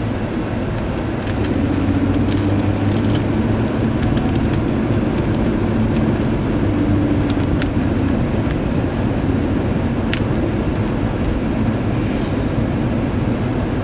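Ford Explorer engine and road noise heard from inside the cabin while driving, the engine note getting louder about a second and a half in as it pulls harder, then holding steady.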